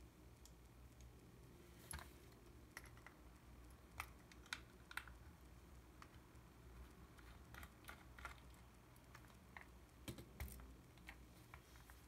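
Scattered small clicks and taps of a screwdriver and fingers handling the plastic body of a Yashica T4 compact film camera during disassembly. The clicks are irregular, with the loudest a few seconds in and again late on.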